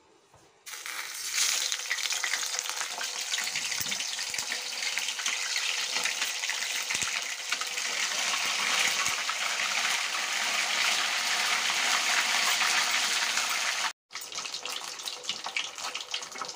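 Marinated fish steaks sizzling in hot oil as they deep-fry in a kadai. The sizzle starts suddenly under a second in, holds steady, cuts out for an instant near the end and comes back a little quieter.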